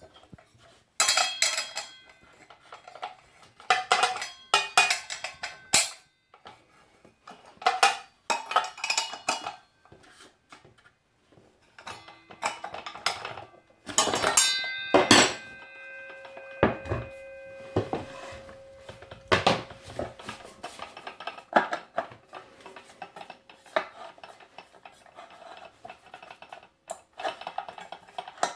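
Hard parts of a new angle grinder being handled and set down: scattered clinks and knocks. About halfway there are several loud metallic hits, and one leaves a metal piece ringing for a few seconds.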